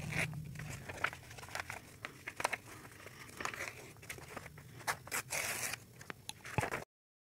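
A sheet of paper being folded by hand into a paper boat: rustling and crinkling with many sharp crackles as the creases are pressed flat. The sound cuts off suddenly near the end.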